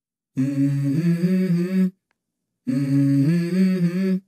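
Song intro: a low voice humming a short stepping melody, twice, with a brief silence between the two phrases.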